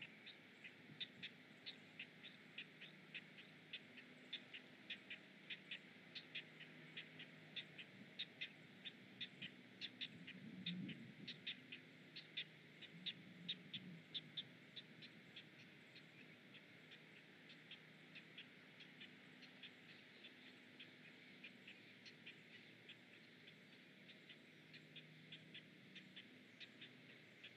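Great blue heron chicks begging in the nest: a rapid, steady train of short ticking clicks, about three a second. A low, louder sound comes in about ten seconds in and again a few seconds later.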